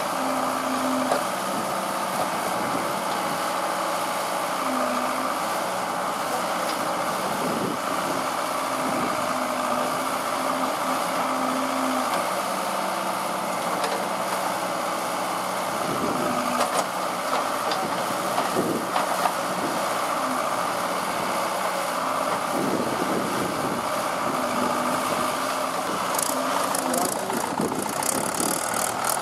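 Diesel engines of a Caterpillar 424B backhoe loader and a Mahindra tractor running steadily, with a few knocks about two-thirds of the way through. Near the end the tractor, towing a trolley loaded with earth, moves off and the sound grows busier and rattlier.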